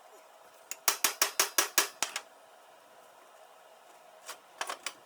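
Hammer striking a rusted broken-off bolt to shock it loose. A quick run of about seven sharp metallic taps, about five a second, about a second in, then a shorter, quieter group of taps near the end.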